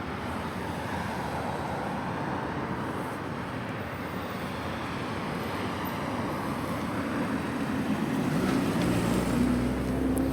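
Steady city road traffic noise. Near the end a motor vehicle's engine hum comes in close and grows louder.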